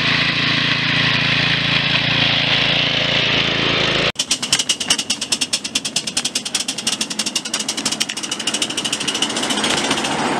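A steady hum, then about four seconds in a rapid, regular clatter of about ten clicks a second that slows a little towards the end: a small miniature-railway vehicle's wheels running along the track.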